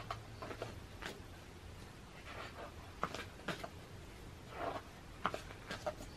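Heavy pages of a large photobook being turned by hand: several soft paper swishes and short crisp snaps, scattered unevenly.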